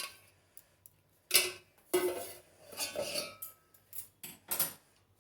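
Kitchen utensils clinking and knocking as they are handled and set down after straining a kadha. There are about seven separate clinks, a couple of them with a short ring.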